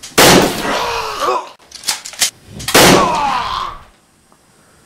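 A person yelling loudly twice, the yells distorted and falling in pitch, about two and a half seconds apart, with two sharp clicks between them.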